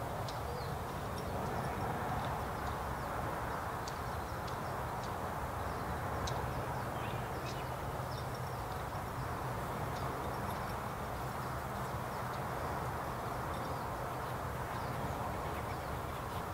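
Outdoor ambience: a steady low rush and hum with faint, scattered high bird chirps.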